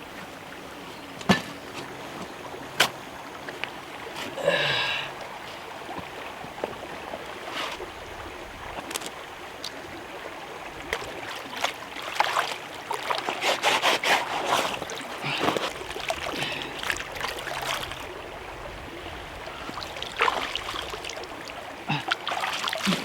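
Water splashing and trickling at a stream's edge, with scattered sharp knocks and one brief pitched sound about four and a half seconds in. The splashing grows busy in the second half.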